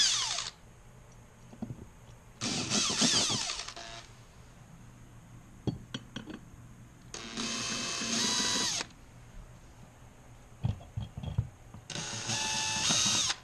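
Power drill boring pilot holes, run in four separate bursts of about a second each with short pauses between. The motor's whine drops in pitch as the trigger is released.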